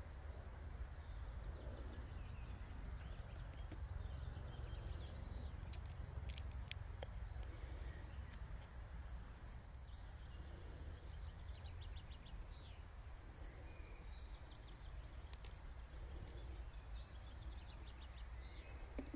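Quiet outdoor ambience: a steady low rumble with faint birds chirping and trilling now and then, and a few small clicks.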